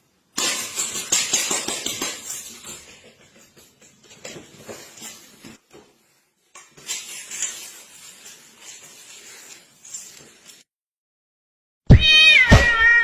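A cat vocalising in several rough, unpitched bursts, the loudest in the first few seconds. About a second before the end, music with singing starts.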